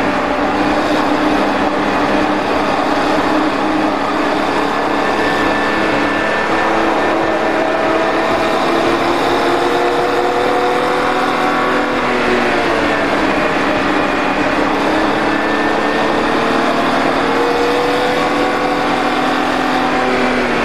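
2007 BMW 3-Series (E9x) engine heard from inside the car, pulling hard at about 4,000 to 5,000 rpm on a race track; its pitch climbs, dips once as the car slows for a corner, then climbs again, over steady road and wind noise.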